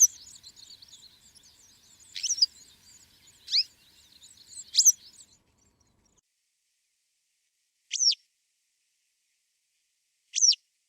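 Songbird calls in a May woodland soundtrack: a sharp, high note sweeping steeply downward, repeated six times at intervals of one to three seconds. Fainter twittering of other birds lies behind the first half and stops about halfway through.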